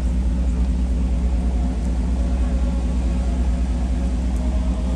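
Vehicle engine running steadily at low speed, a deep even rumble.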